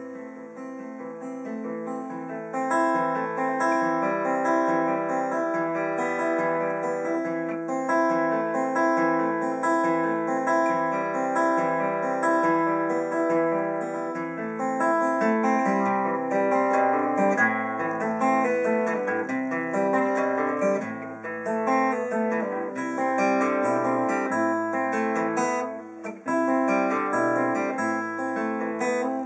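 Steel-string acoustic guitar played solo in an instrumental break, chords picked and strummed so the notes ring one after another at a steady pace, with a brief drop in level near the end.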